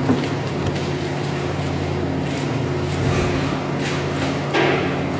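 A steady low machine hum, with a few short knocks over it. The loudest knock comes about four and a half seconds in.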